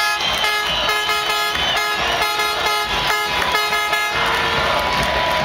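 Many air horns in a stadium crowd, blasting in quick repeated toots, about three or four a second. About four seconds in the tooting gives way to crowd noise with one horn held on a steady note.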